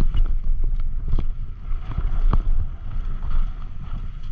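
Wind buffeting the microphone in a low rumble while a mountain bike rides a trail, with repeated sharp knocks and clatter from the bike.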